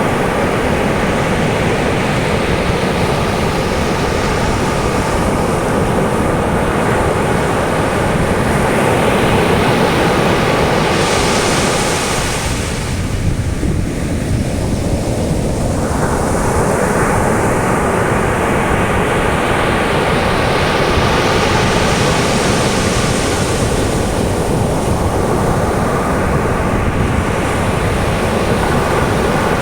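Caribbean surf breaking and washing up on a sand beach, with wind buffeting the microphone; one wave breaks more sharply about twelve seconds in.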